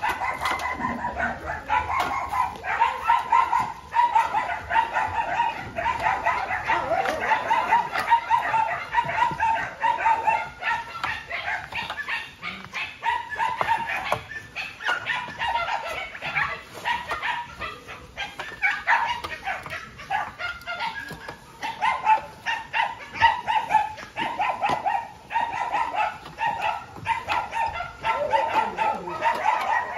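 Many dogs barking at once, their barks overlapping without a break.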